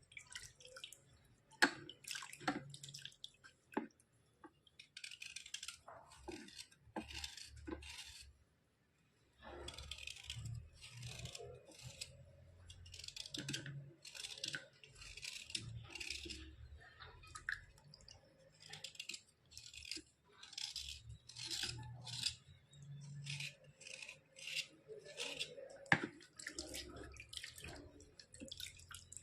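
Wet white slate pencils being scraped and rubbed in a run of short, gritty strokes, with a few sharp clicks and a brief pause about eight seconds in.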